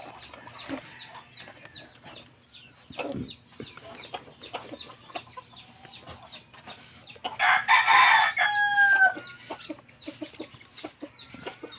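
A rooster crows once, loud and about two seconds long, a little past the middle, with a held note that falls at the end. Faint scattered clicks lie under it.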